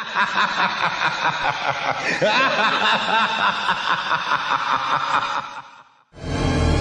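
Laughter in quick pulses that cuts off about five and a half seconds in, followed near the end by music starting.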